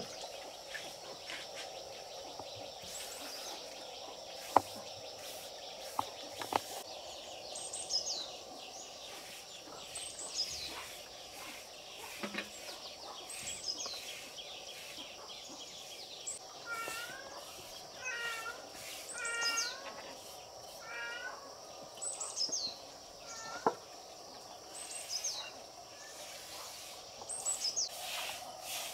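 Birds calling: a short high call sweeping downward repeats every two to three seconds, and a quicker run of lower warbled notes comes about two-thirds of the way through. Underneath is a steady background hiss with a few faint sharp knocks.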